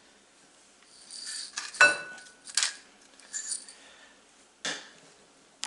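Kitchen dishes and utensils being handled: a few light knocks and clicks, with one clear ringing clink about two seconds in.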